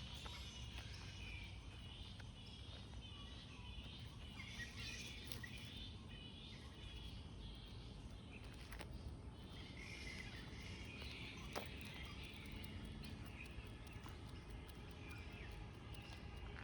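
Small birds chirping on and off over a steady low rumble of outdoor ambience, with one short click about two-thirds of the way through.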